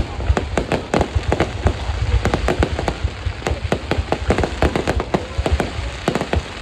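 Fireworks going off in quick succession: a dense run of sharp bangs and crackling pops, several a second, over a low rumble.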